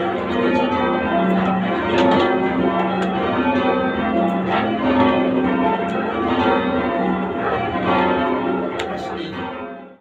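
Church bells change ringing from the ringing room below the bells, struck one after another in a fast, even, unbroken round. The sound fades away abruptly at the very end.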